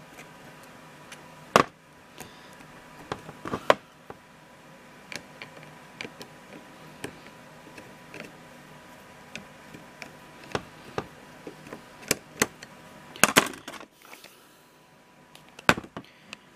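Small plastic and metal parts clicking and knocking as an airsoft M4's motor plate is fitted onto the pistol grip. The clicks come irregularly, with a louder cluster of knocks near the end.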